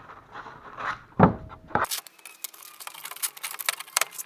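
Tool-handling clatter while changing over the sharpening setup: a single loud knock about a second in, then a run of quick, sharp clicks and light scrapes.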